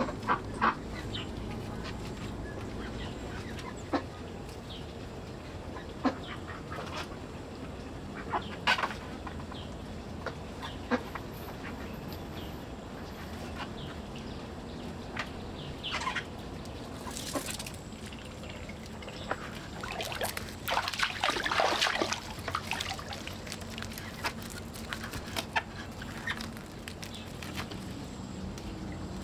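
Farmyard poultry clucking and calling in short, scattered notes, with a busier, louder flurry about twenty seconds in.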